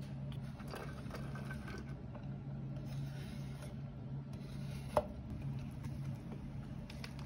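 Minced garlic being scraped off a wooden cutting board into a nonstick frying pan of oil: irregular rasping, scraping strokes, with one sharp tap about five seconds in, over a steady low hum.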